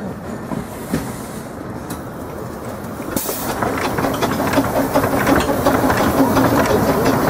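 A 15-inch gauge steam locomotive running slowly past at close range, with a short sharp hiss of steam about three seconds in. After that it gets louder, with steam hissing and rapid clicking from the wheels and motion as the engine draws level.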